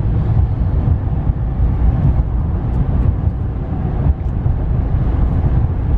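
Steady low rumble of road and wind noise inside the cab of a 2015 Ram pickup cruising at about 60 mph in a strong side wind.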